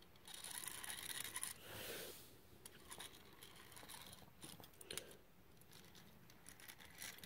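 Faint scratching and rubbing of a hand moving a small die-cast toy engine over carpet, strongest in the first two seconds, then a few faint ticks.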